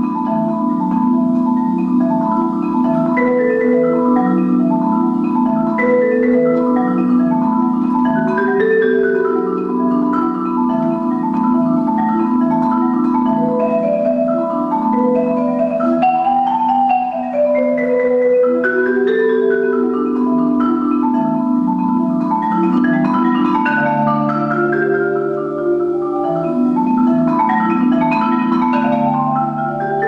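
Solo Musser concert marimba played with mallets: sustained rolled chords in the low and middle range under rising and falling runs of single notes, with a deeper rolled note added in the last few seconds.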